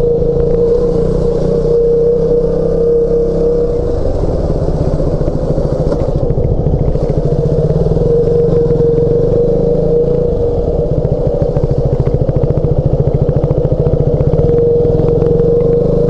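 KTM 200 Duke's single-cylinder four-stroke engine running steadily as the motorcycle rides slowly, heard through a helmet-mounted microphone. The engine note stays even, with no revving.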